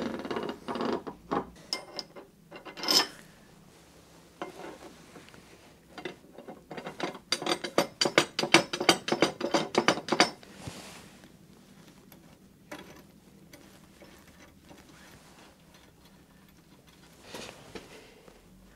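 Metal clicks and clatter from a workbench vise's steel screw and nut being worked by hand. There are a few knocks at first, then a fast, even run of ratchet-like clicks for about three seconds in the middle, then a few light ticks.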